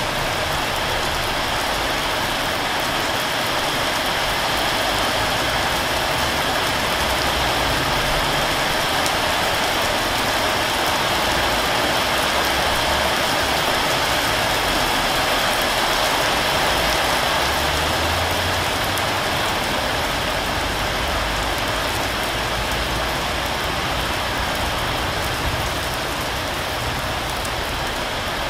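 Heavy rain falling in a steady downpour, a constant even hiss of drops with no let-up or thunder.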